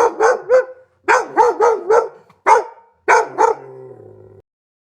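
A dog barking: about ten short barks in quick runs of one to four.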